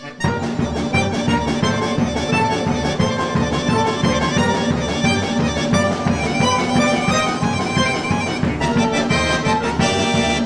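Instrumental folk ensemble music led by a button accordion over plucked strings, with a steady, quick beat. The music breaks off for a moment right at the start and then carries on without a pause.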